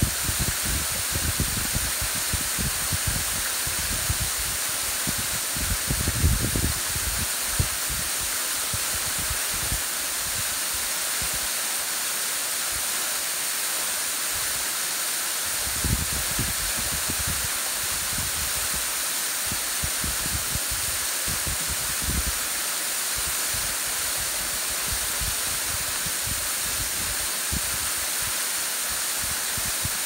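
Waterfall pouring down a rock face into a splash pool, a steady rushing hiss of falling water. Wind gusts rumble on the microphone in the first several seconds and again about halfway through, easing off in between.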